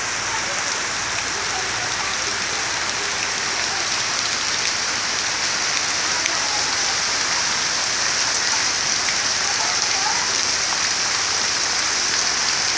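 Heavy rain falling steadily, pattering on standing muddy water and leaves.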